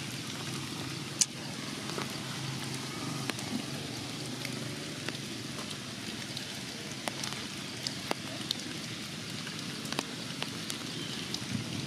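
Rain falling on forest leaves: a steady hiss with scattered sharp drip taps, one louder tap about a second in.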